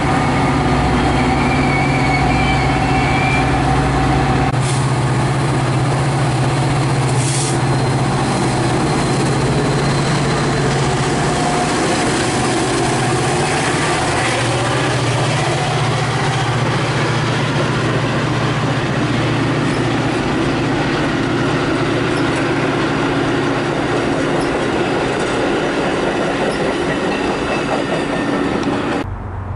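Metra commuter train pulling into the station: the diesel locomotive's engine drones steadily under the rolling of wheels and cars, and its note shifts a few seconds in and again about halfway. A brief high wheel squeal comes about two seconds in.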